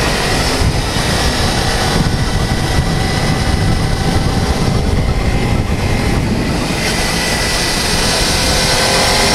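Motorcycle riding at highway speed: a steady engine drone buried in heavy wind rush.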